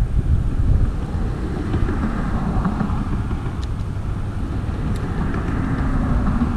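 Wind buffeting the microphone: a steady, fluttering low rumble, with a faint steady hum joining in near the end.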